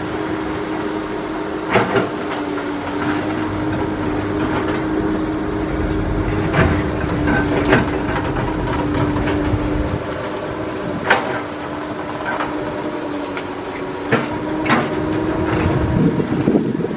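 Heavy diesel machinery: an excavator and a loaded dump truck running with a steady drone. Sharp metal clanks and rattles come every few seconds as the laden truck moves over rubble.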